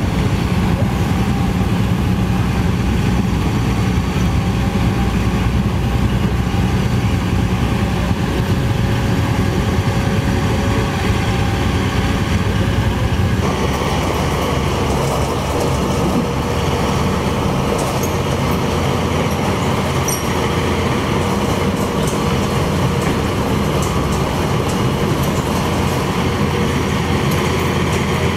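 CAT 320D2 excavator's diesel engine running steadily under work. The sound changes abruptly about halfway through, to a closer, rougher engine sound.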